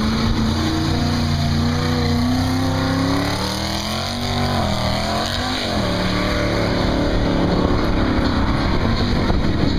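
Mud truck's engine running hard, loud and continuous, its pitch dipping a little before the middle, then rising and falling before it settles back to a steady note.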